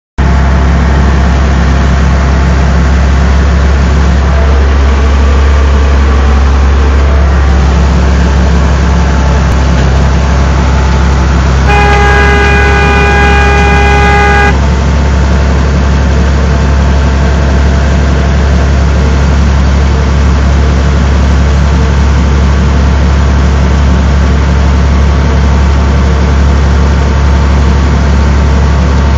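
Tractor engine running steadily while pulling a New Holland BR7060 round baler, a loud low hum throughout. About twelve seconds in, a steady horn-like tone sounds for about three seconds, then stops.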